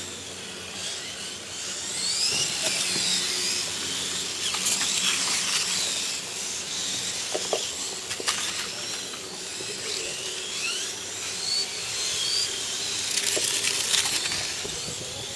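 Several 1/8-scale RC motorcycles racing: their small electric motors give high-pitched whines that rise and fall as the bikes speed up and slow around the corners. A few sharp clicks come through partway in.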